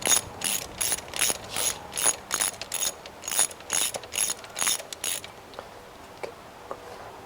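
Socket ratchet wrench clicking as a spark plug is tightened by feel, a steady run of about three clicks a second with a short pause partway through, stopping about five seconds in.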